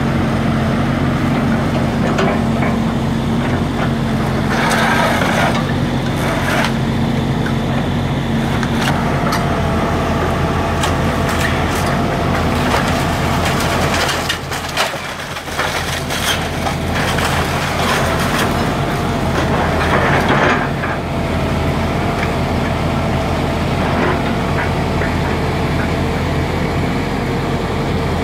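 Volvo EC160B tracked excavator's diesel engine running steadily under working load, with repeated crashes and cracking of timber and sheet-metal debris as the bucket tears the house apart.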